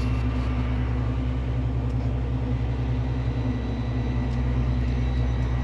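Tractor engine running at a steady speed, a constant low drone with no change in revs.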